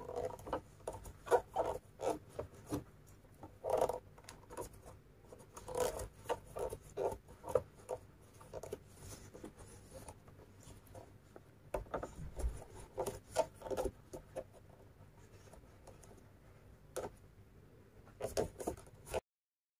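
Crochet hook pulling thick Egyptian macramé cord through stitches: soft, irregular rubbing and scraping strokes of cord against cord and hook. The sound cuts off abruptly near the end.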